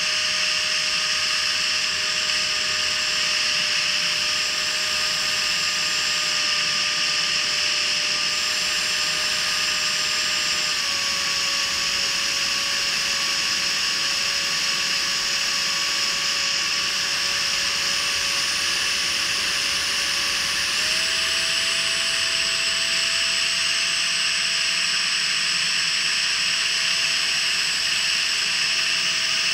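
Freewing 70mm electric ducted fan with an inrunner motor, whining at high speed over a steady rush of air, heard from a camera mounted on the model jet. Its pitch steps down slightly about eleven seconds in and back up about ten seconds later.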